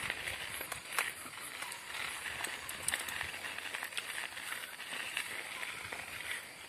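Bicycle riding over a rough dirt trail: tyres running over dirt and grass, with sharp clicks and rattles from the bike as it jolts over bumps.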